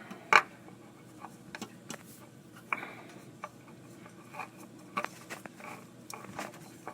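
Scattered clicks, taps and short scrapes of hands handling the new oil filter as it is fitted. A sharp click about half a second in is the loudest.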